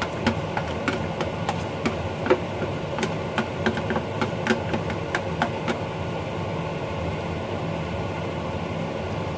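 A fork scrapes and taps against a plastic tub as the last of the batter is scraped out and dropped into the pan, making many light clicks, fewer toward the end. Underneath is a steady low hum and the sizzle of fritters frying in oil.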